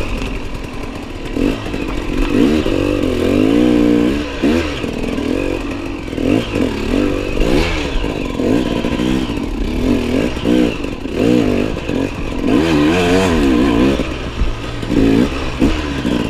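Enduro motorcycle engine revving up and falling back again and again as the bike is ridden over uneven ground.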